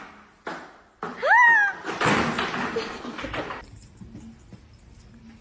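A cat giving one short meow that rises and then falls, with a click just before it and some rustling after it.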